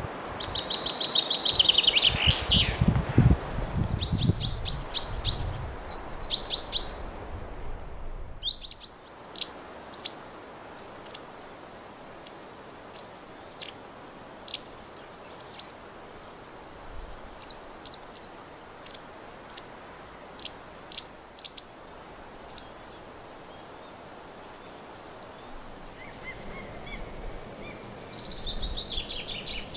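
Common chaffinch singing: a loud, fast trill falling in pitch, with a low rumble under it, then short repeated high notes. After a break about eight seconds in, a small bird gives scattered short, high chirps, with a busier burst of high notes near the end.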